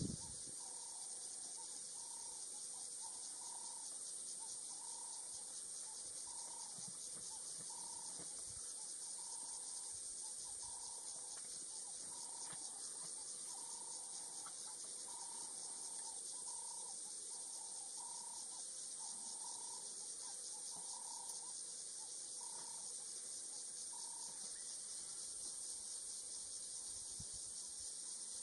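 Steady, high-pitched chorus of insects shrilling in dry bush. Over it a bird repeats one short call about once every three quarters of a second, stopping a few seconds before the end.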